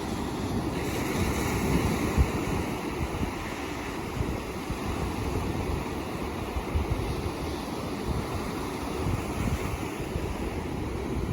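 Ocean surf washing ashore in a steady wash of noise, with one wave swelling and breaking about a second or two in. A low wind rumble sits under it.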